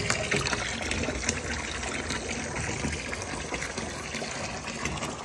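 Bath tap running, a thin stream of water pouring steadily into a bathtub full of foamy water.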